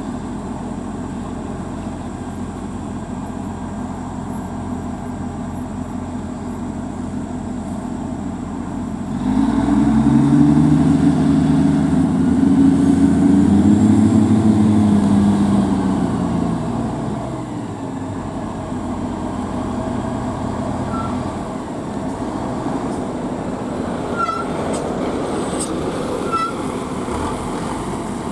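Heavy diesel truck engine running over a steady traffic hum, growing much louder about nine seconds in, its pitch rising and then falling, and fading back after about sixteen seconds.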